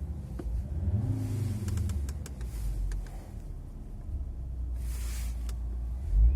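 Car engine revved once and falling back to a steady low idle, with scattered sharp clicks and a short hiss about five seconds in, then a loud low thump near the end.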